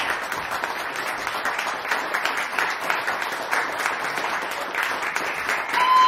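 Audience applauding, many hands clapping densely and steadily, with a short held tone rising above the clapping near the end.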